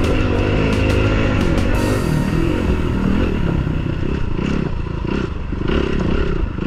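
2010 Suzuki RMX450's single-cylinder four-stroke engine heard from the bike itself as it is ridden along a dirt trail, its revs rising and falling over and over.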